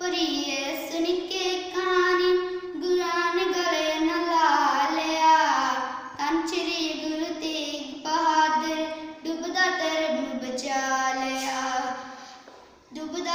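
A young girl singing a Punjabi devotional poem solo, in long held notes that slide up and down, with a short break near the end.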